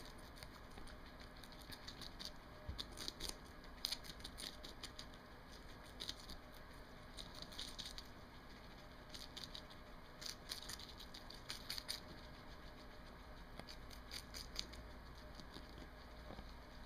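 Two guinea pigs chewing lettuce leaves: faint, quick crunching clicks that come in short bouts.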